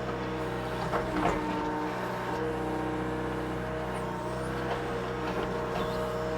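Mini excavator's diesel engine running steadily under work, with a few short knocks about a second in.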